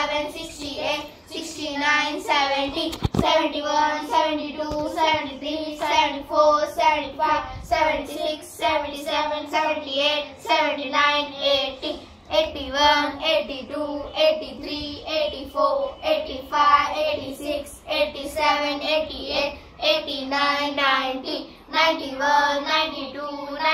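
A group of children chanting numbers together in a sing-song rhythm as they count on their fingers.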